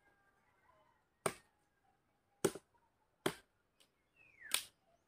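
Machete blade chopping into a wooden branch: four sharp chops about a second apart, with a lighter knock between the last two.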